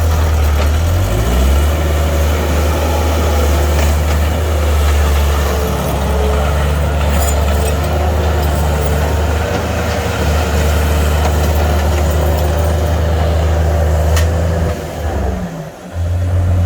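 Bobcat T300 skid steer's Kubota diesel engine running steadily. Near the end the engine note slides down and drops in level briefly, then comes back up.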